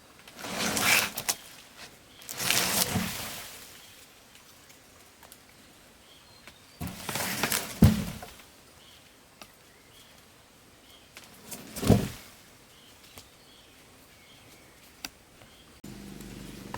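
Four separate bursts of rustling and swishing, each about a second long, typical of branches and leaves being moved or thrown down. The last two end in a sharp thud. A steady low hum starts abruptly near the end.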